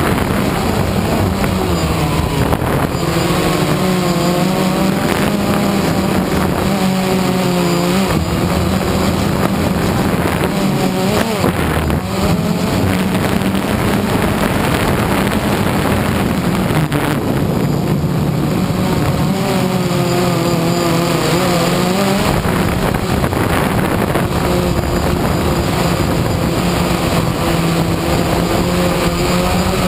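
DJI Phantom 1 quadcopter's four electric motors and propellers whining steadily, heard from the GoPro on its own frame over a constant hiss of propeller wash. The pitch wavers up and down now and then as the motor speeds change in flight.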